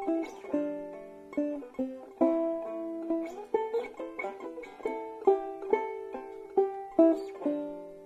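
Banjo playing a tune: a steady run of plucked notes, each struck sharply and ringing briefly before it fades.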